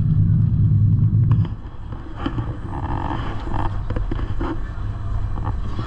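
Gornergrat rack-railway train running with a heavy low rumble that falls away sharply about a second and a half in, leaving quieter clatter and scattered knocks.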